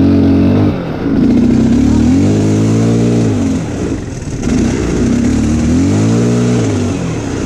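Linhai 300 ATV's single-cylinder four-stroke engine revved hard, rising and falling about three times, as the stuck quad is driven up a slope while being pushed by hand.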